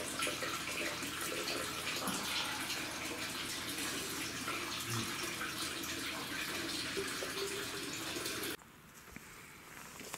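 Steady rush of running water, which cuts off abruptly near the end.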